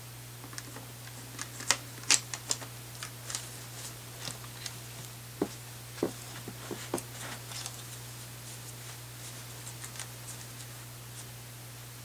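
Scattered light clicks and taps of rifle parts and tools being handled during a handguard rail install, the sharpest ones about two seconds in, over a steady low hum.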